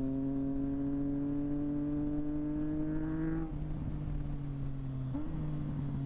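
Triumph Street Triple 765 RS's inline three-cylinder engine through a Delkevic aftermarket exhaust, pulling under acceleration with a slowly rising pitch. The pitch drops at a gear change about three and a half seconds in, and again about five seconds in.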